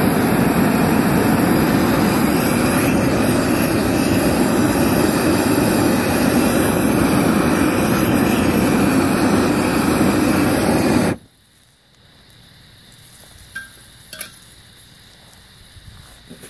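Handheld propane weed-burner torch burning with a loud, steady rush of flame, then shut off abruptly about eleven seconds in; a few faint clicks and knocks follow.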